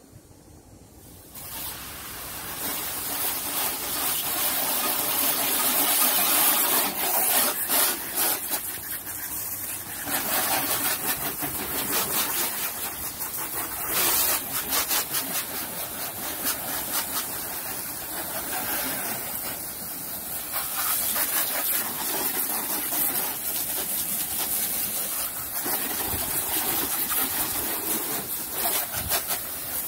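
Water spraying hard from a hose nozzle onto a car's body, wheel and the concrete beneath, rinsing off soap. A steady hiss that starts about a second in and swells and fades as the spray is swept along the car.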